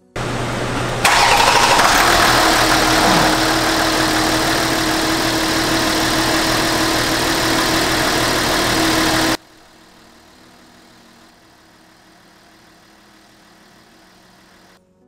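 Hyundai Veracruz engine starting and then running steadily and loudly, with the fuel-injector cleaning machine hooked into its fuel lines. After about nine seconds the sound drops suddenly to a much fainter steady hum.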